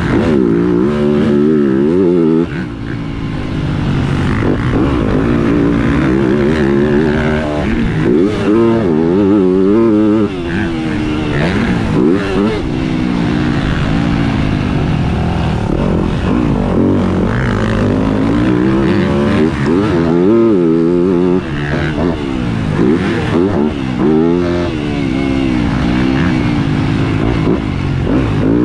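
Yamaha motocross bike engine heard from onboard, revving up and dropping back over and over as the rider works the throttle and gears around a dirt track. It is loud throughout, with brief drops when the throttle is shut.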